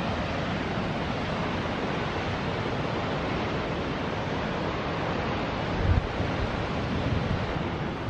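Steady rushing roar of the Háifoss and Granni waterfalls falling into the canyon, mixed with wind; a short low gust buffets the microphone about six seconds in.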